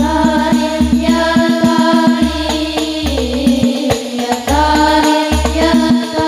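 Group of young women singing an Islamic devotional song together into microphones through a sound system. The singing is backed by quick percussive beats and repeated deep bass pulses.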